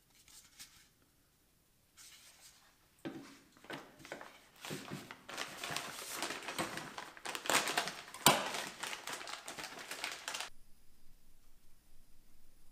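Plastic parts bag crinkling and rustling as it is handled, with light clicks and knocks of small parts set down on a wooden workbench and a sharp click about eight seconds in. It starts about two seconds in and stops a couple of seconds before the end.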